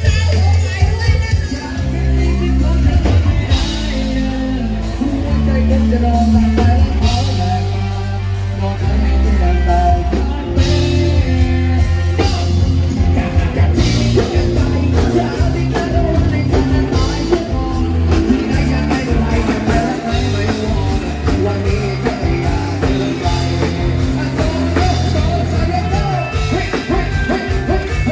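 Band music with singing over a heavy bass line and drums.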